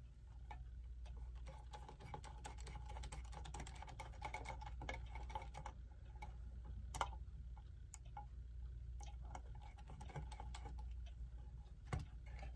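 A screwdriver working a small screw out of a metal clock case: faint irregular clicks and scrapes, with a sharper click about halfway and two more near the end.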